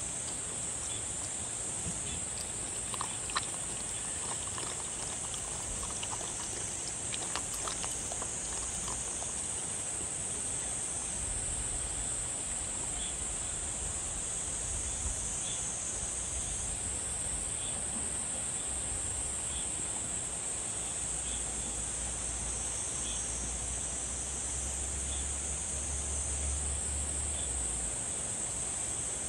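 A dog eating soup, with a few short wet lapping and chewing clicks, over a steady high-pitched drone of insects.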